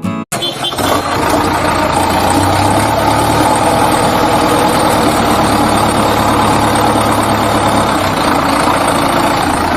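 A steady, loud engine-like running noise with a low hum underneath, starting and stopping abruptly.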